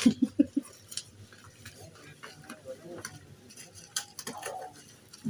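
Scattered sharp clicks and light handling noise of packaging being opened with scissors, the clicks loudest and most frequent in the first half second.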